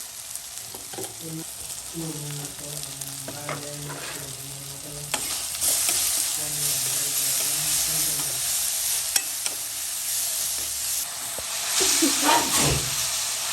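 Ground spices and ginger-garlic paste frying in hot oil while being stirred, with a sizzle and a spoon scraping the pan. The sizzle grows louder about halfway through.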